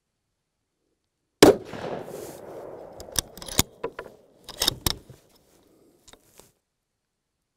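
A 6.5 Creedmoor Ruger Precision Rifle fires one shot about a second and a half in, with a rolling echo. A few sharp metallic clicks follow as the bolt is worked to eject the case and chamber the next round.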